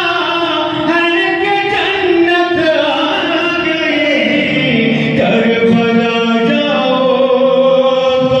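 A man singing an Urdu naat in a chant-like devotional style, drawing out long held notes.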